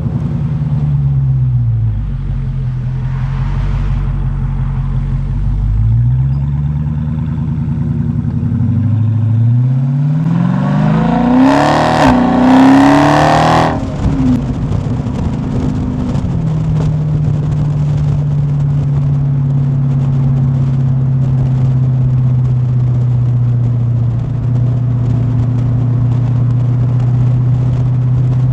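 Dodge Charger Hellcat's supercharged 6.2-litre HEMI V8 under way. Revs drop twice early on, then climb into a loud, hard pull for a few seconds about ten seconds in. It then settles to a steady cruise.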